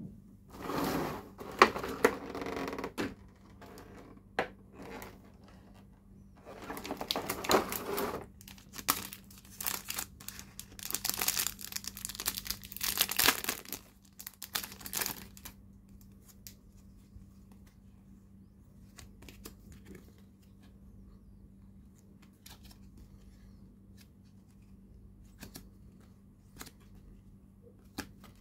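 Plastic packaging crinkling and tearing in several bursts through roughly the first fifteen seconds as a pack of toy cards is unwrapped, then quieter with scattered light clicks of stiff cards being handled.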